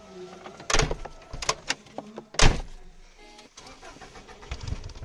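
Two loud thumps and a few smaller clicks and knocks inside a car. Near the end the Subaru's EJ20G turbocharged flat-four cranks and starts, settling into a low steady run.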